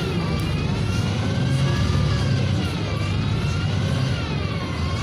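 NefAZ 5299 city bus with a Cummins ISBe diesel and a Voith automatic gearbox, heard from inside while under way. A steady low engine rumble runs under a drivetrain whine that sinks and climbs in pitch several times as the bus slows and speeds up.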